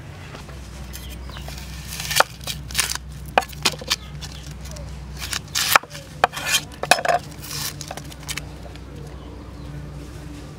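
A kitchen knife slicing through an onion on a wooden chopping block. It makes irregular sharp knocks as the blade hits the wood, with short crisp cutting sounds, for most of the middle of the stretch.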